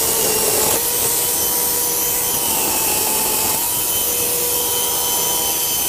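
Greenworks battery-powered chainsaw running steadily at speed and cutting through a log: a constant electric motor whine with the chain rasping through the wood.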